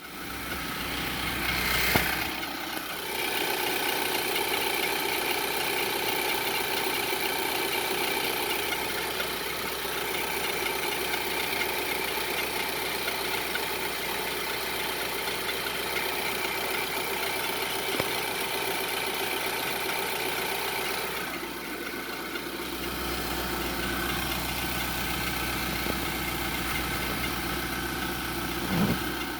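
Infiniti QX56 5.6-litre V8 cold-starting, catching about two seconds in, then idling steadily with a whistle that comes and goes over the engine sound. The owner takes the whistle for the sign of a loose timing chain.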